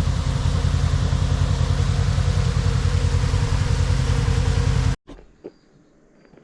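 Polaris RZR side-by-side's engine running steadily while driving, with an even low pulsing note. It cuts off suddenly about five seconds in, leaving a quiet stretch with a few faint taps.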